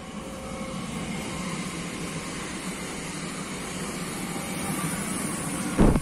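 Train approaching on the line, its rumble growing steadily louder, then a sudden loud rush just at the end as it reaches the microphone.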